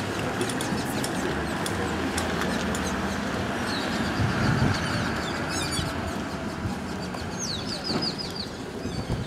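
Outdoor crowd of walkers on a road, with the engine of a slow-moving vehicle running behind them. High bird-like chirps come about four seconds in, then a quick run of them near the end.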